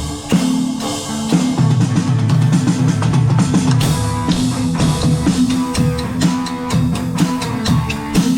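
Live guitar and drum kit playing a rock riff together: sustained, repeated guitar notes over regular drum and cymbal hits.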